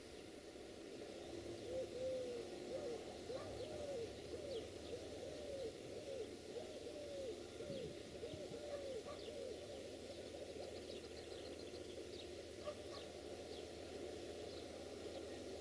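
A run of short, soft hooting calls, about one to two a second, some overlapping, fading out about two-thirds of the way through, over a faint low steady rumble.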